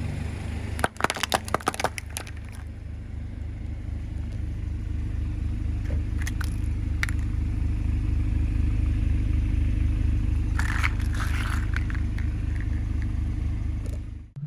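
A car engine running steadily at low speed as its tyre rolls over a row of hollow plastic toy capsules, cracking them in a quick series of sharp snaps about a second in. A few more cracks and crackles come later as the pieces are crushed.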